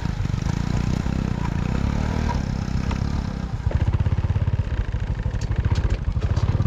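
Small motorcycle engine running at low speed, its low, even beat growing louder and more pronounced a little after halfway. A few light clicks and rattles near the end.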